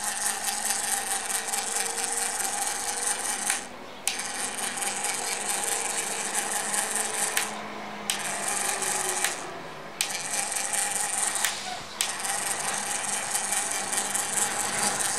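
Steady mechanical rattling from the rotating stand as it is turned by hand, with a few brief pauses where the turning stops.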